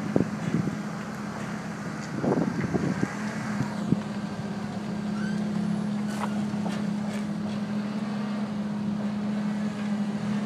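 A steady machine hum held at one pitch, with scattered short knocks and clicks in the first few seconds.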